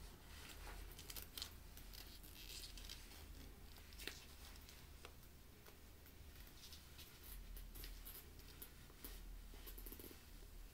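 Near silence with faint rustling and a few light clicks from a handbag being handled.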